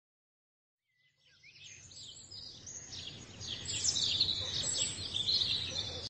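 Several small birds chirping over a faint low rumble, fading in from silence about a second and a half in and stopping abruptly near the end.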